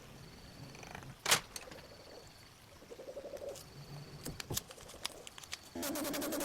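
Several sharp clicks and taps of small tools and parts being handled, the loudest about a second in; near the end a small electric motor starts and runs with a steady, fast-pulsing buzz.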